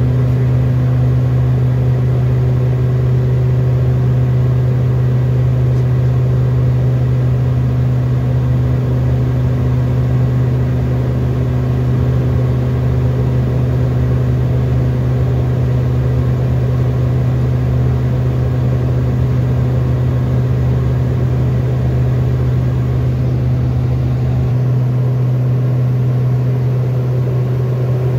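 Steady cabin drone of a Beechcraft King Air F90's twin turboprop engines and propellers in flight, a deep hum with fainter steady tones above it, the engines held at maximum rotation as they are throughout the flight. Near the end the deepest part of the rumble drops away.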